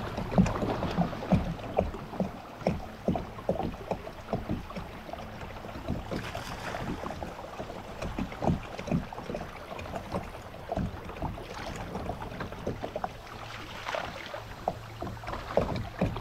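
Water slapping and knocking against a plastic fishing kayak's hull in irregular strokes. Near the end a hooked fish splashes at the surface as it is brought to the kayak.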